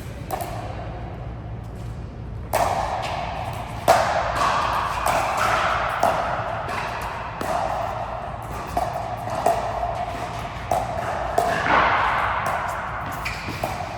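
A rally in a racket sport: sharp ball strikes about once a second, ringing and echoing in a large hall, starting a couple of seconds in.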